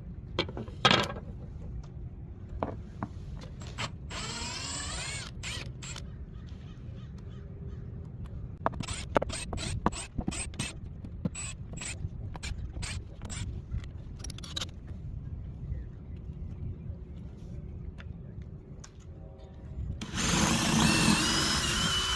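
Work sounds from tools being handled: scattered sharp clicks and knocks, with a run of quick clicks in the middle. Near the end comes a loud burst of noise with a wavering whine lasting about two seconds.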